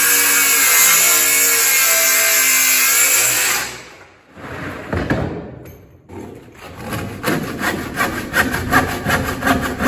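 Circular saw running as it cuts through a wooden rafter board, stopping about three and a half seconds in. After a short lull, a hand saw is worked back and forth in quick strokes, finishing the corners of the bird's-mouth notch.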